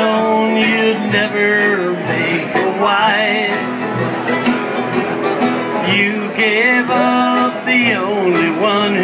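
Acoustic country band playing an instrumental break between sung verses: a fiddle carries the melody with vibrato over strummed acoustic guitar.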